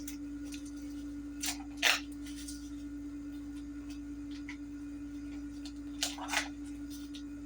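A steady low electrical hum with a few short rustles and knocks from packaging being handled, twice in a pair: once near the start and once near the end.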